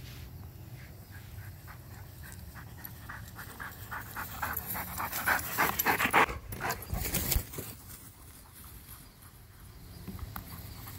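Dog panting hard from running, quick rhythmic breaths about three or four a second that grow louder and are loudest a little past the middle.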